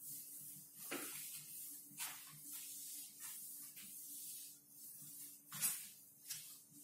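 Blackboard being wiped with a duster: a series of uneven brushing, hissing strokes, roughly one a second.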